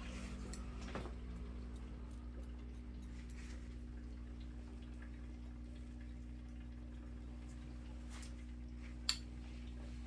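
Sparse light clicks of haircutting tools over a steady low hum, with one sharper click about nine seconds in.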